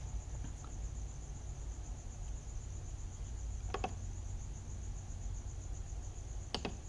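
Two short clicks of membrane keys pressed on a Huanyang VFD's keypad, about four seconds in and again near the end. Under them runs a steady high-pitched pulsing trill and a low hum.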